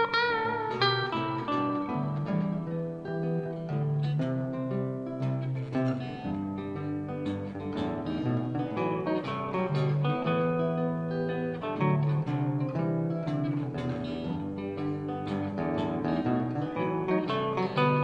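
Live instrumental guitar-band passage: an acoustic guitar, an acoustic bass guitar and an electric guitar play together, with no vocals.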